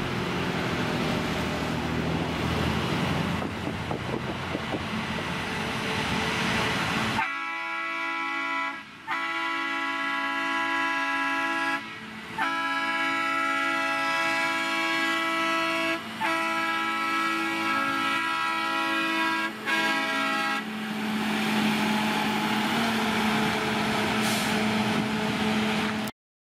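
Track maintenance machines rolling past on the rails, engine and wheel noise. About seven seconds in, a track machine's horn sounds in a series of long blasts broken by short gaps for about thirteen seconds, then the engine and rolling noise continues until the sound cuts off just before the end.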